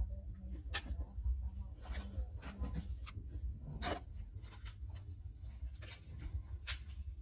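Light scraping and small clicks of things being handled on a hard surface, with one sharper click about four seconds in, over a steady low hum.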